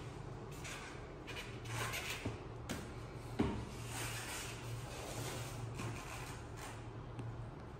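Indoor room noise: a steady low hum with soft rustling swishes that come and go, and one sharp knock about three and a half seconds in.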